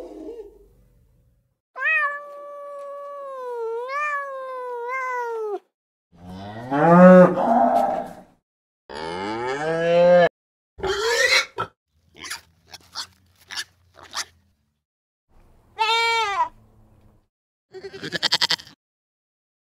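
Animal calls one after another: an elephant trumpeting, a cow mooing twice, and near the end short goat bleats, the last one quavering.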